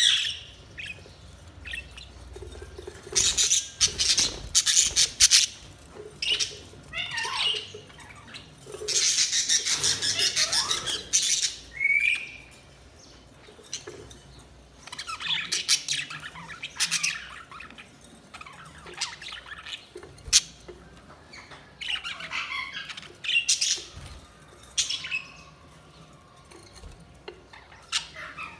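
Budgerigars (pet parakeets) chirping and squawking in irregular bursts of high-pitched chatter, with quieter pauses between.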